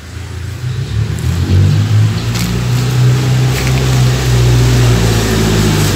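A motor vehicle's engine running close by, swelling over the first second or two and then staying loud and steady.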